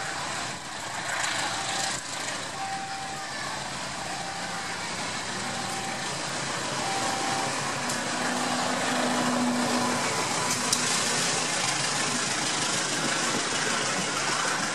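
GE U18C (CC 201) diesel-electric locomotive passing close by with its engine running, followed by passenger coaches rolling past, the noise growing louder as the train goes by.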